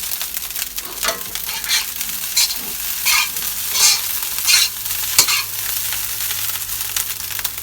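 Rice frying with garlic in a hot pan, sizzling steadily. It is stirred and scraped in regular strokes about every 0.7 s for the first five seconds or so, then sizzles more evenly.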